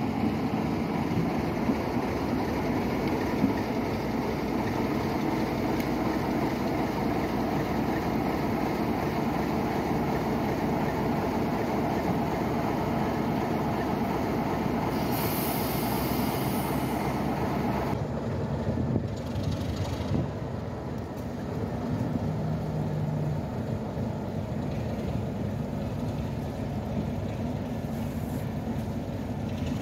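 Class 33 diesel-electric locomotive's Sulzer eight-cylinder engine running steadily while it shunts slowly, hauling a steam locomotive along the yard. A brief hiss about halfway through.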